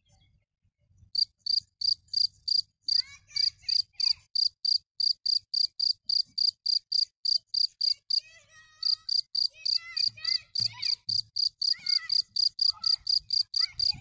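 Field cricket chirping: an even run of short high chirps, about four or five a second, made by rubbing its wings together. It starts about a second in and breaks off briefly a little past the middle.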